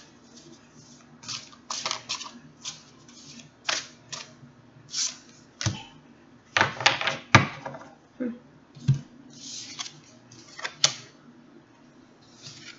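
Tarot cards being shuffled and handled: irregular short swishes and clicks, with a few dull knocks in the middle.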